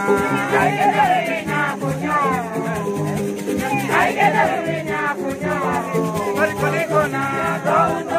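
Live music for dancing: voices singing over a plucked string instrument playing a steady repeating pattern of low notes, with a shaken rattle keeping time.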